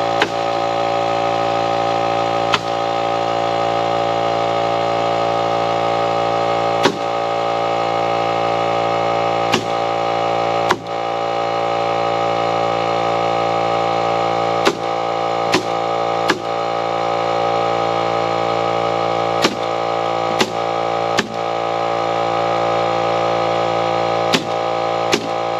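Nail gun firing about a dozen sharp shots at irregular intervals, nailing down floor boards, over the steady hum of a running engine or compressor.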